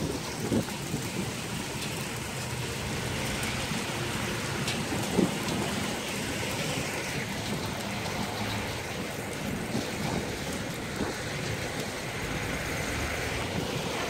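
Steady heavy rain falling, an even hiss with no break, with one short louder knock about five seconds in.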